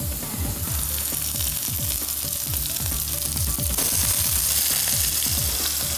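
Raw prawns and garlic sizzling in hot oil in a wok. The sizzle grows a little louder about four seconds in, as more prawns go into the pan.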